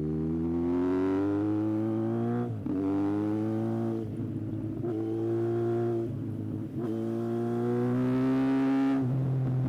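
Yamaha XJR1300's inline-four engine pulling hard through the gears: the pitch climbs, breaks briefly at each upshift (about two and a half and six and a half seconds in), and climbs again, then drops to a lower, steadier note near the end as the throttle eases.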